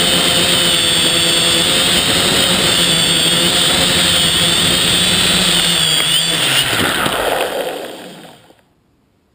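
Quadrixette 30 quadcopter's electric motors and propellers, heard from the onboard camera, whining steadily with several held tones. About seven seconds in the pitch drops and the sound fades out over the next second or so as the motors spin down on landing.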